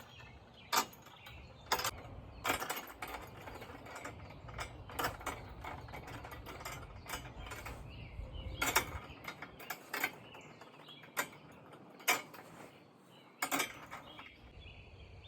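Backyard swing swaying, its hangers giving repeated sharp clicks and creaks every second or so, irregularly spaced.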